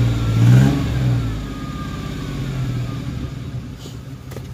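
1994 Chevrolet S10 Blazer's 4.3 V6 with true dual exhaust through glass packs, revved twice and then settling back toward idle, with a faint whine rising and falling with the revs. A single sharp click comes near the end.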